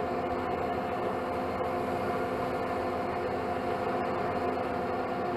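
Metal lathe running steadily with a gear whine of several fixed tones while a twist drill in the tailstock chuck bores into the spinning workpiece.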